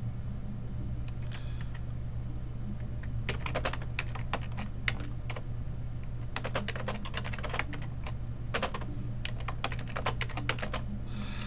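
Typing on a computer keyboard: a few light clicks, then quick runs of key presses from about three seconds in, with short pauses between runs. A steady low hum runs underneath.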